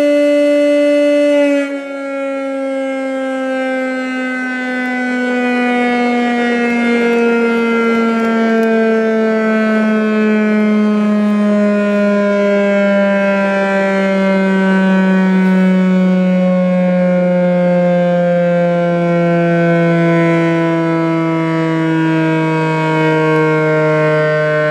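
Municipal fire-prevention siren, a civil-defence-type warning siren, sounding one steady tone. About two seconds in it begins to wind down, its pitch falling slowly and steadily for the rest of the sound.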